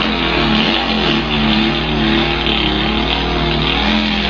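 A boy imitating a Volkswagen engine with his voice: a steady buzzing drone that wavers and dips in pitch, like an engine idling and revving.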